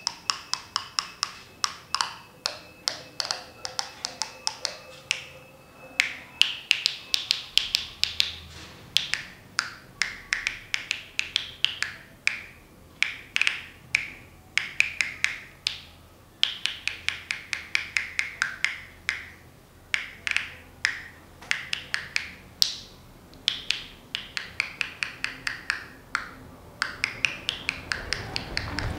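A pencil tapped rapidly against the teeth as mouth percussion. The open mouth gives each sharp click its own pitch, so the runs of clicks carry a tune, with short breaks between phrases.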